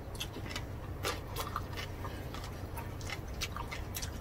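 Close-up chewing of roast pork, lechon and its skin, heard as a scatter of short, sharp, irregular mouth clicks.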